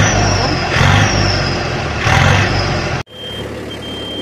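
The turbocharged diesel engine of a Yanmar 1160 turbo tractor with straight-through exhaust is revved in blips about once a second, each followed by a high whine falling in pitch. About three seconds in, the sound cuts abruptly to a quieter, steadier engine with a short high beep that repeats.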